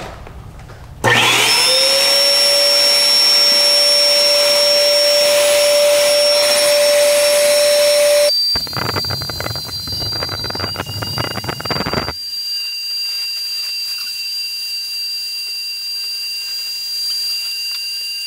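Car Capsule's electric inflator pump switched on about a second in, its motor spinning up to a steady whine as it blows air into the storage bubble. It is pretty loud. A patch of knocks and rustling comes part-way through, and the pump runs on quieter after that.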